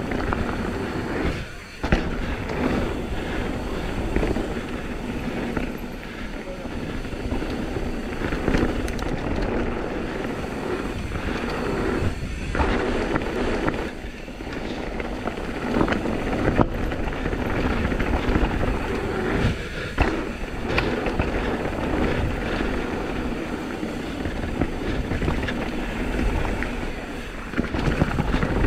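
Downhill mountain bike ridden fast over rough trail, heard from the rider's GoPro: a steady rush of wind and tyre noise on dirt and rocks, with frequent rattles, clacks and knocks from the bike and chain. There are a few short lulls in between.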